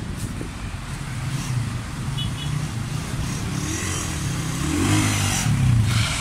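Suzuki Raider 150 motorcycle engine running near the curb, then revving up as the bike pulls away past the microphone, over steady street traffic.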